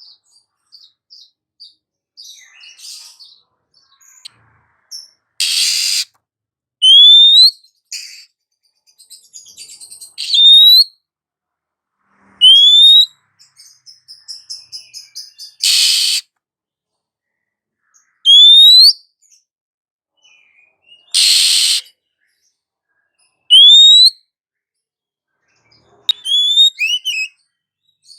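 Female Oriental magpie-robin (kacer) calling: short rising whistled notes repeated every two to three seconds, broken by three loud, harsh rasping calls and a brief run of chatter.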